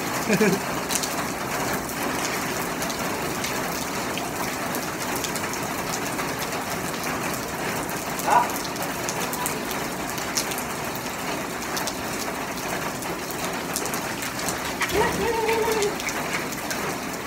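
Steady rain shower falling on a wet street and rooftops, a constant even hiss of rain.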